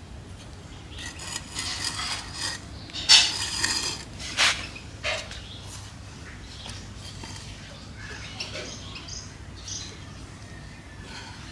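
Hands working soil into a glazed ceramic pot on floor tiles: gritty scraping and crumbling, with a few louder scrapes and knocks of hard material about three to five seconds in.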